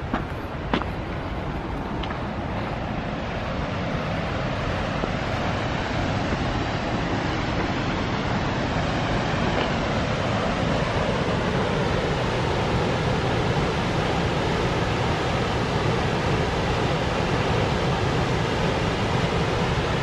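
High Force waterfall on the River Tees: the steady rush of falling water, growing slowly louder, with a few light knocks near the start.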